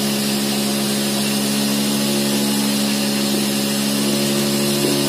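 Cotton candy machine running: its motor spins the spinner head with a steady hum, over a steady hiss.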